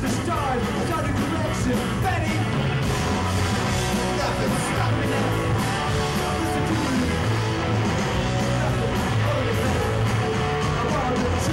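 Loud punk rock song playing steadily: a full band with guitar and a driving beat, and yelled vocals over it.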